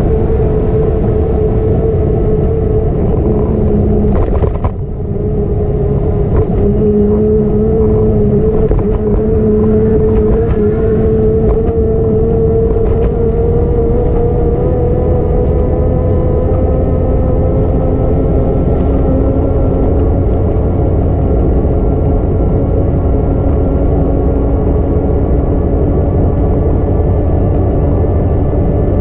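Ride noise from a moving vehicle on a bike path: a steady rumble with a whine that slowly climbs in pitch, and a brief dip in level about five seconds in.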